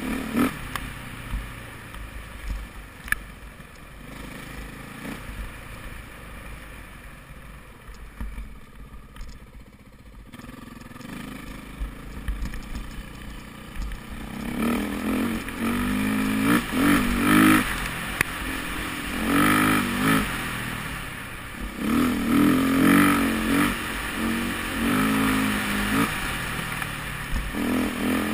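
2008 KTM 450 EXC-R's single-cylinder four-stroke engine being ridden off-road, heard from a helmet camera. For the first half it runs low and fairly quiet on light throttle. From about halfway the rider opens it up in repeated bursts, the revs rising and dropping off again several times.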